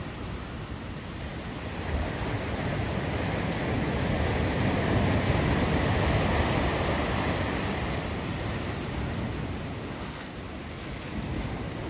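Ocean surf: waves breaking into white water, with a surge that builds from about two seconds in, is loudest around the middle and then ebbs away.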